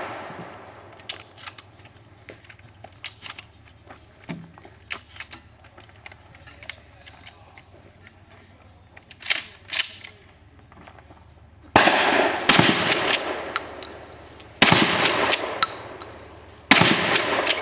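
Shotgun firing three times, about two to three seconds apart, in the second half. Each blast is loud, sudden and followed by a long echoing decay. Before them come scattered small clicks and knocks.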